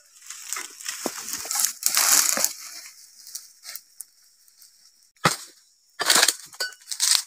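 Crunching and rustling of dry oil palm fronds and undergrowth. About five seconds in this gives way to several sharp knocks of a dodos, a chisel blade on a long pole, striking the base of a palm frond.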